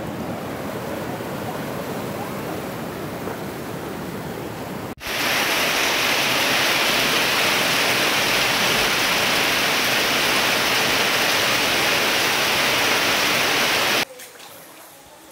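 Swollen storm-fed river rushing steadily. About five seconds in, a sudden cut to heavy rain pouring down, louder and hissier, which stops abruptly near the end.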